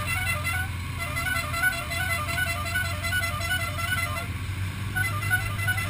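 A repeating tune of short, bright, horn-like notes over a steady low drone, breaking off briefly twice.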